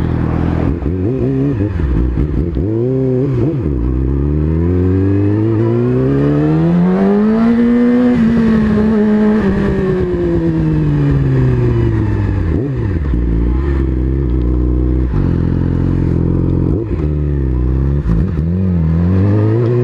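A 2017 Yamaha R6's inline-four engine through an Akrapovič full titanium exhaust, heard from on the bike while riding: a short rev about two seconds in, then the pitch climbs steadily for several seconds, holds, and falls away as the bike slows. It stays low for a few seconds and rises again near the end.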